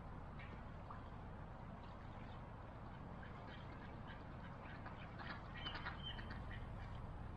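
Mallard ducks quacking: a few scattered quacks, then a denser run of quacking about five to six seconds in.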